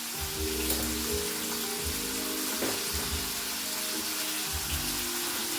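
Chicken thighs sizzling steadily in hot avocado oil in a pan, with background music and a pulsing bass line underneath.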